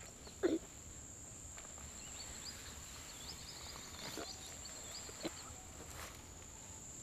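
Quiet outdoor ambience: a steady high insect whine runs throughout, with faint bird twittering in the middle. A short falling sound about half a second in is the loudest moment.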